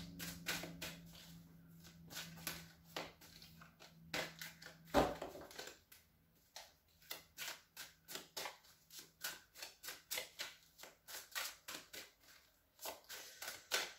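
Tarot cards being handled and shuffled by hand: a run of soft, irregular card clicks and flicks, several a second, with one louder knock about five seconds in.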